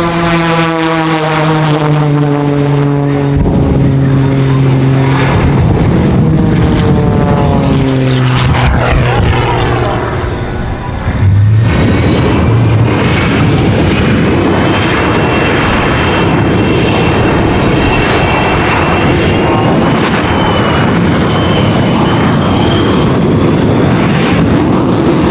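A propeller-driven aerobatic plane passing low, its engine note falling steadily in pitch, over the rush of jet exhaust. About eleven seconds in, this gives way to a sudden, loud, steady blast from the Shockwave jet truck's afterburning jet engines, with a faint whine wavering in pitch above it.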